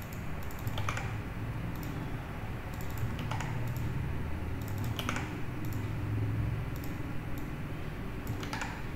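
Computer keyboard keys clicking in short, irregular clusters as text is copied and pasted between files, over a steady low hum.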